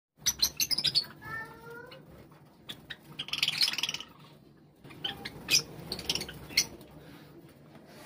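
Java sparrows calling: a quick run of sharp chip notes, then a fast chattering trill about three seconds in, then scattered single chips.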